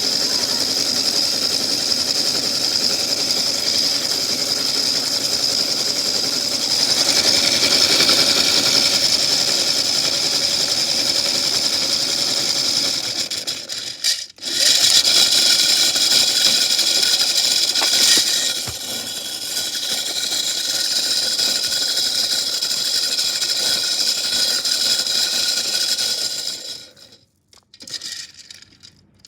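Toy washing machine's small electric motor running with a steady high whine while metal chains rattle around inside the drum. It cuts out briefly about halfway, starts again, and stops shortly before the end.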